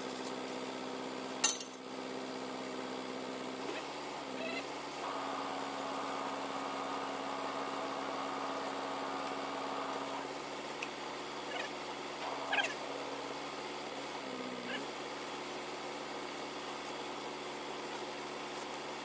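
Crane truck's engine running steadily at raised revs, its pitch sagging briefly twice, with a higher whine from about five to ten seconds in. A sharp knock about one and a half seconds in, and a few light knocks later on.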